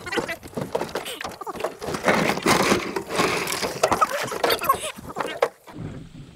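Irregular knocking and clattering of people and gear moving about in a small john boat, with some indistinct voices.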